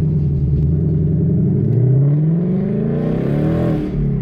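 2018 Mustang GT's 5.0 L Coyote V8 accelerating hard from a standstill, heard from the cabin, with its active exhaust running through an X-pipe in place of the resonators. The engine note climbs steadily in pitch, drops briefly near the end as it shifts up, then climbs again.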